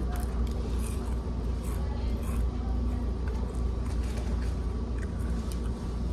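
Steady low background hum with faint, scattered crisp crunches of fried chicken being bitten and chewed.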